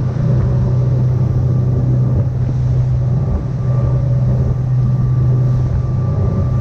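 Sportfishing boat's engines running steadily at cruising speed, a loud low hum, over the rush of water from the churning wake.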